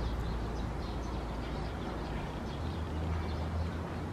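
Distant, steady low rumble of a high-flying Boeing 787-8 airliner's Rolls-Royce Trent 1000 jet engines, swelling slightly about three seconds in, with small birds chirping faintly.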